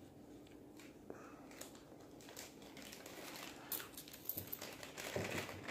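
Faint crinkling and rustling of a cardboard box being handled close to the microphone, with scattered light taps that get busier and louder near the end.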